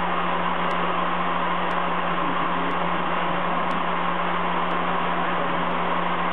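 CNC milling machine's end mill cutting a block of 16MnCr5 case-hardening steel: a steady cutting noise over the steady hum of the spindle, with no change in load.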